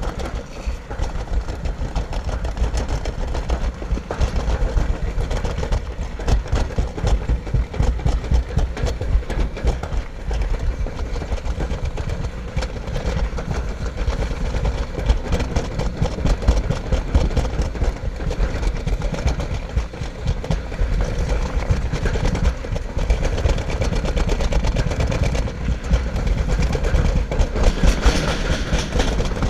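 Summer toboggan sled running fast down a steel trough track, a continuous rumble and rattle of the sled on the metal channel. It grows louder and brighter near the end as the sled passes through a tunnel.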